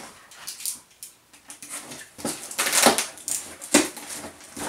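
A taped cardboard box being opened: packing tape slit and ripped and the cardboard flaps pulled apart, a run of short scraping and tearing noises.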